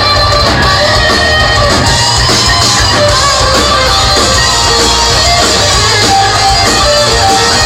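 Live rock band playing loud, with strummed electric guitars over a heavy, dense low end, recorded from the crowd.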